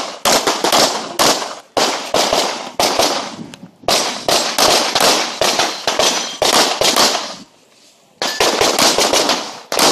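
Rapid pistol fire, shots coming two or three a second in strings, each followed by a short echo. The firing breaks off briefly about three and a half seconds in and for a longer moment near eight seconds before resuming.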